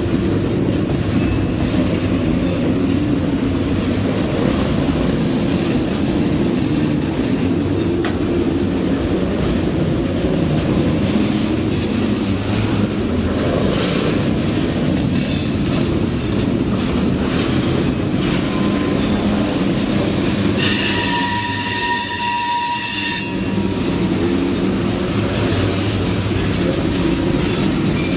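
Norfolk Southern freight cars rolling past with a steady rumble and clatter of wheels on rail. About 21 seconds in, a steel wheel squeals against the rail for a couple of seconds, one steady high-pitched note.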